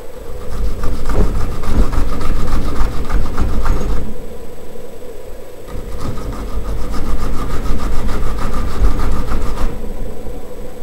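Onion being grated on a metal box grater: quick back-and-forth rasping strokes, in two runs of about four seconds each with a short pause between.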